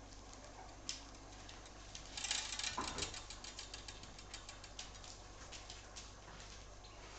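West Highland White Terrier puppies padding and scrabbling over newspaper: a light patter of small claw clicks and paper rustles, busiest about two seconds in.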